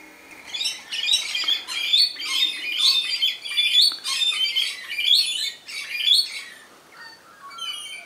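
Rainbow lorikeets screeching: a rapid, harsh, shrill run of calls for about six seconds, then a few fainter scattered calls near the end.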